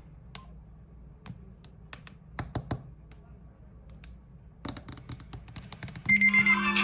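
Scattered taps and clicks, with a quick run of them shortly before the end. Then a phone's incoming-call ringtone starts up, a repeating high beep over a steady low tone.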